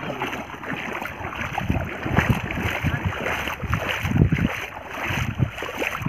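Feet splashing and sloshing through shallow running water as a child wades after a ball. Several low rumbling gusts of wind hit the microphone.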